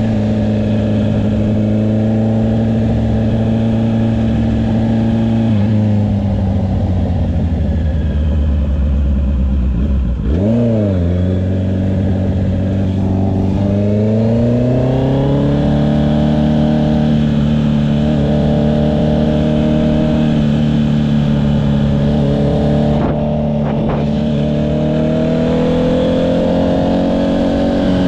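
Honda CB650R's inline-four running through an Akrapovic exhaust while riding. It holds a steady note, then rolls off for several seconds. About ten seconds in there is a quick rev blip up and down, and then it pulls up again into a steady cruise, with the revs climbing a little near the end.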